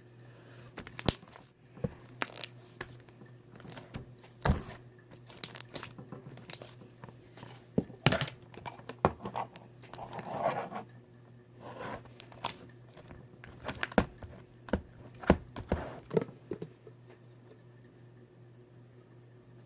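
Slime being worked by hand, giving irregular crinkling crackles and sharp clicks that stop near the end.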